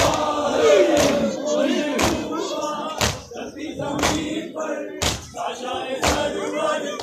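A crowd of Ashura mourners chanting in unison, with a sharp beat about once a second.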